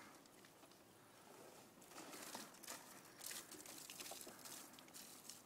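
Near silence with faint, irregular crackling and ticks over a low hiss.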